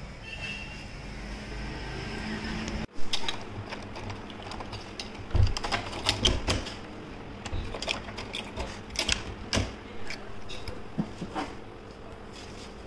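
A key being worked in a door lock: a run of sharp metallic clicks and knocks, with a loud knock about three seconds in.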